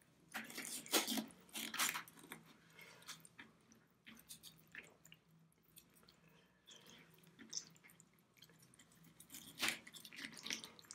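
Kitchen knife cutting through a raw chicken breast on a plastic cutting board: scattered crunches as the blade goes through the joint, with soft wet squishing of the meat. The loudest cuts come about one and two seconds in and again near the end.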